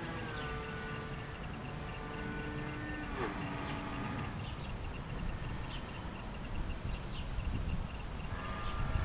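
Electric motor and propeller of a foamboard RC airplane whining steadily, then dropping sharply in pitch about three seconds in and fading out by about four seconds: the plane losing all thrust in flight. Wind rumbles on the microphone, and a short whine returns near the end.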